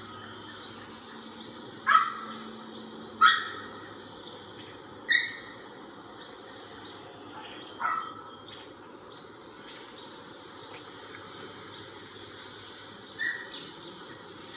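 About five short, sharp animal calls a few seconds apart, the first two the loudest, over a faint steady hiss.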